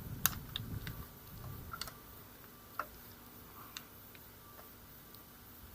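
Light, irregular clicks and taps of a T-handle hex key and a countersunk bolt being handled and threaded in, about a dozen spread over the few seconds, the sharpest near the start.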